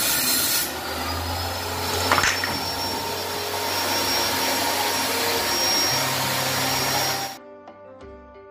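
Power saw ripping 12 mm plywood into long strips: a loud, steady rushing cut with a high whine, and a knock about two seconds in. It cuts off suddenly a second before the end, leaving background music.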